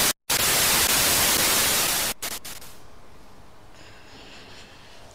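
Loud TV-static hiss of a video glitch transition effect. It cuts out for an instant just after it starts and stops about two seconds in, leaving only a faint background hush.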